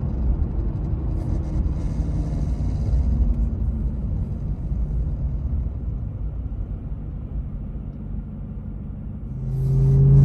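Low driving rumble inside a Ram TRX's cabin; about nine seconds in, a loud, steady low humming drone sets in. This is the strange vibration noise the truck makes while moving and not when stopped, which the owner places somewhere in the dash or engine bay.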